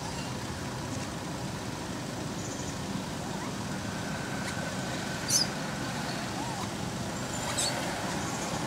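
Steady outdoor background rumble, like distant traffic, with a brief high-pitched chirp about five seconds in and a fainter one a couple of seconds later.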